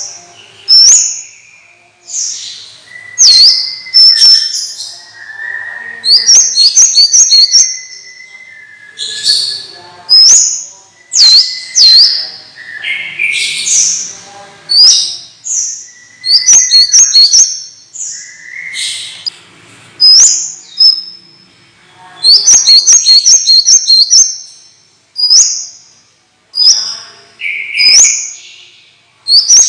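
Songbird singing loud, varied high-pitched phrases, many of them quick runs of repeated notes, with short pauses between phrases.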